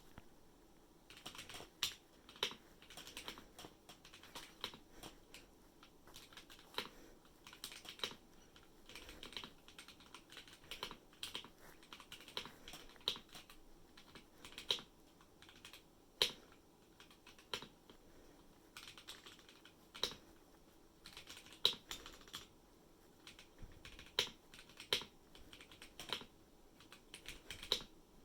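Typing on a Womier K87 mechanical keyboard with Gateron Yellow linear switches, lubed with Krytox 205g0 and filmed: a steady, irregular stream of key presses, with louder strokes every second or so.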